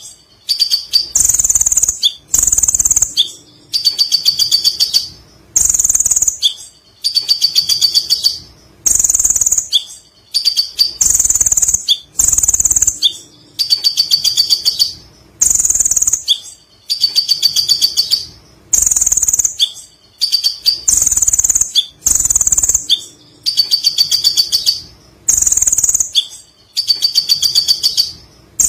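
Kolibri ninja (Van Hasselt's sunbird) singing loud, high-pitched rapid chattering phrases, one after another about every second and a half with brief pauses between.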